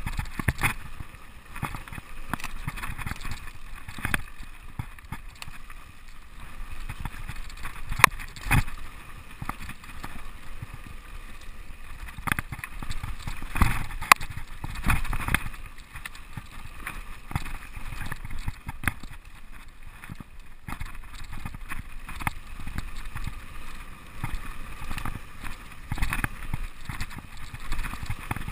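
Mountain bike riding fast down a gravel forest trail: a continuous rush of tyre noise with frequent, irregular sharp knocks and rattles as the bike hits bumps, the biggest jolts about 8 and 14 seconds in.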